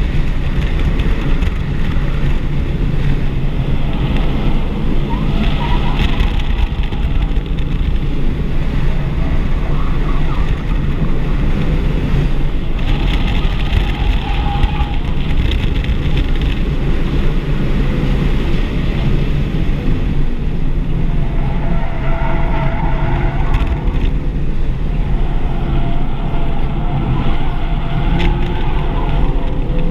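Cabin sound of a stock 2024 Audi RS3 at speed on track: its turbocharged 2.5-litre five-cylinder engine running, with road and wind noise. A higher-pitched sound swells and fades about four times.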